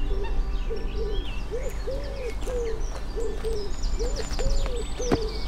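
A bird giving a run of short, low, cooing or hooting calls, about ten in a row, while small songbirds chirp and trill higher up. There is a single sharp click near the end.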